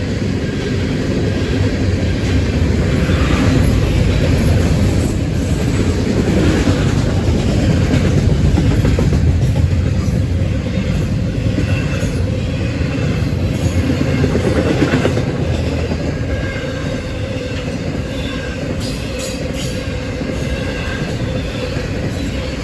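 Florida East Coast Railway freight train rolling past, its cars' wheels running over the rails in a continuous loud clatter. It is loudest through the middle and eases slightly near the end.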